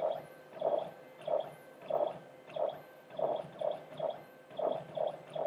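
BotFactory Squink PCB printer's print head moving in short strokes as it prints conductive ink traces: a brief mid-pitched motor whirr repeating a little under twice a second, slightly unevenly spaced.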